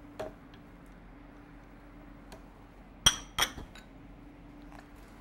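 Two sharp clinks of a glass bowl, about a third of a second apart, as yogurt is tipped and scraped out of it into a blender jar, with a softer knock and a few faint taps around them.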